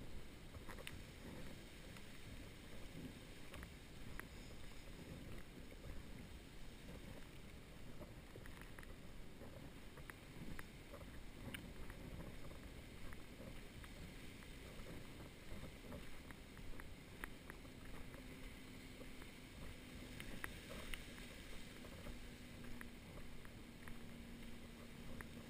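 Footsteps on a sandy path with a low rumble of wind and movement on the camera's microphone, and faint scattered ticks. A faint steady hum comes in about two-thirds of the way through.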